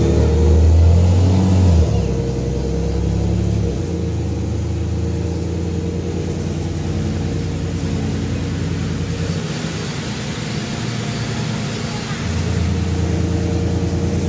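A loud Cummins diesel engine of a VMZ-4252 city bus, heard from inside the bus, pulling under load. It is loudest in the first two seconds, drops in pitch twice within the first four seconds, eases off for a few seconds past the middle, and pulls strongly again near the end. A steady hiss of rain and wet road lies under it.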